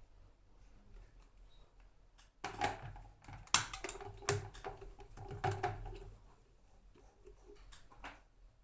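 Sharp clicks and knocks from an electric kettle being handled, bunched into a run of about three and a half seconds, followed by one more click near the end.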